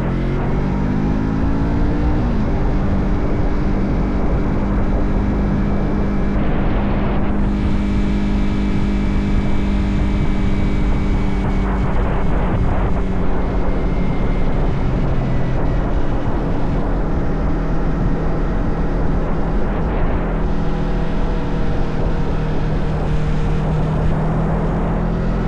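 Motorcycle engine heard from on the bike, rising in pitch as it accelerates over the first two seconds, then running at a steady cruise. A constant low wind rush runs under it.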